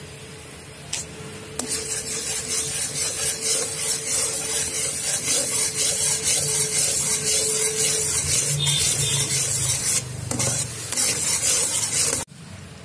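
A flat spatula stirring and scraping bubbling jaggery syrup in an aluminium kadai, with a steady hiss from the boiling syrup. The stirring picks up about a second and a half in and cuts off suddenly near the end.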